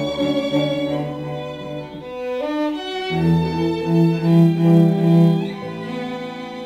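Classical background music of bowed strings, violin and cello, playing slow held notes that shift every second or two.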